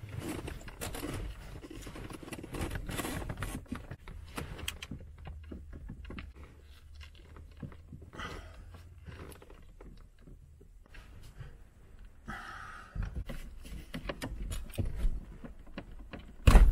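A manual gear shift knob in a BMW 1-Series E87 being wrenched up off its gear lever by hand: irregular clicks, knocks, scraping and rustling as it is tugged. Near the end, one loud sharp knock as the press-fitted knob pops free.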